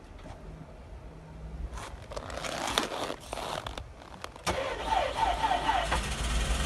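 Chery Tiggo 8 cold start at −28 °C: the starter cranks for about two and a half seconds, and about four and a half seconds in the engine catches on the first try, the revs briefly flaring, then runs steadily.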